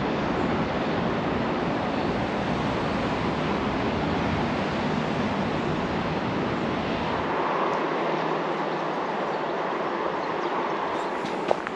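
A passing train's steady rushing rumble, the deep low rumble dropping away about seven seconds in and leaving a lighter rush.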